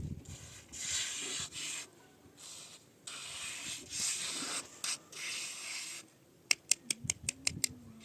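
Repeated scraping or rubbing strokes, each about half a second to a second long, then a quick run of about eight sharp clicks near the end.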